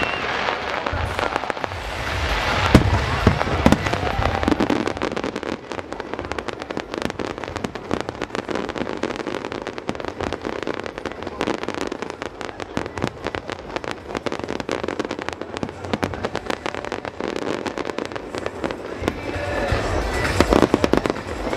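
Fireworks display: booming aerial shells about two to four seconds in and again near the end, with a long stretch of dense, rapid crackling between them.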